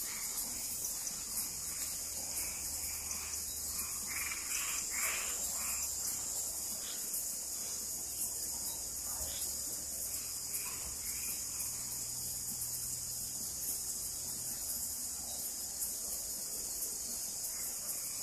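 Dense, steady chorus of crickets and other night insects, a shrill high-pitched hiss that never lets up, with scattered short frog calls rising over it, most between about four and six seconds in.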